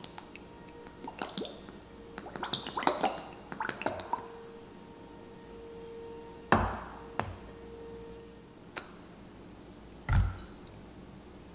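Sauce bottles squeezed and poured into a small glass bowl, with light clicks and clinks of caps and glass in the first few seconds. Two louder thumps come about halfway and near the end.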